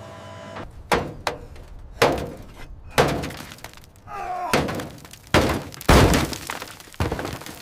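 A series of about eight sharp knocks and breaking, cracking impacts at irregular intervals, each with a short ringing tail, and a brief wavering squeal about four seconds in.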